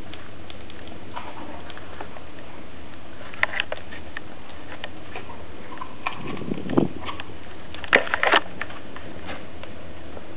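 Wood fire crackling in a stove firebox, with scattered small pops and louder sharp cracks about a third of the way in and again near the end. A duller knock a little past the middle, as an object is pushed by hand into the burning wood.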